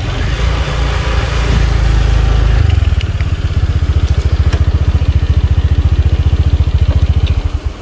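Motor scooter engine running as it rolls to a stop, then idling with a rapid, even putter from about two and a half seconds in. The engine cuts off shortly before the end.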